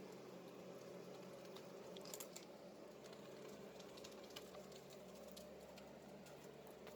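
Near silence: the faint, steady hum of a distant forest harvester's engine, with scattered light ticks and clicks.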